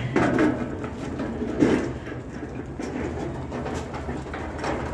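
Flatbed hand cart rolling over a concrete floor, its wheels rumbling with irregular rattles and a sharper knock about one and a half seconds in.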